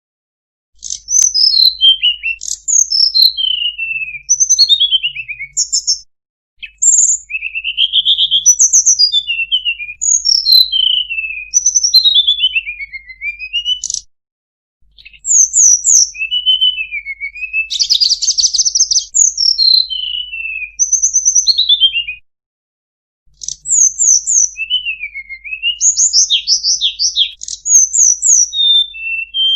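Hill blue flycatcher (tledekan gunung) singing: rapid clear whistled phrases, many sliding down in pitch, with some fast trills. The song comes in bouts of several seconds separated by short pauses.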